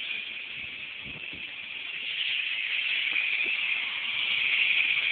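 Small remote-control toy helicopter's electric motor and rotor blades running with a steady high whir. The whir grows louder about two seconds in as the helicopter takes off.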